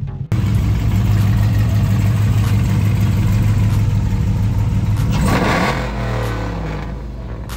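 Car engine running loud and steady, then revving and dropping back down in pitch near the end.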